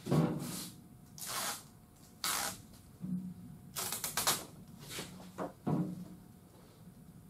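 A run of short scratchy rustles, about seven in all and roughly a second apart at first, then closer together: tape and its protective backing film being pulled and pressed at the edge of a plastic rear window louver.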